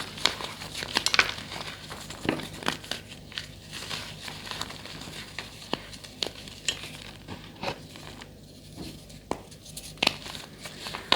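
Blocks of gym chalk being crushed, giving irregular sharp crunches and crumbling, with more crunches bunched together in the first second or so and again near the end.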